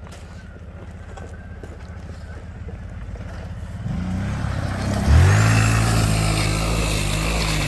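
Kawasaki Brute Force 750 ATV's V-twin engine running low and getting louder. It revs up about four seconds in, then jumps sharply to a loud, steady pull about five seconds in.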